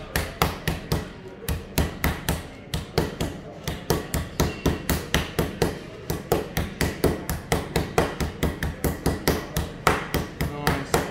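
A meat tenderizer pounding a raw yellowtail tuna portion between sheets of cling film on a board, flattening it out. The blows come in a steady run of about three or four a second.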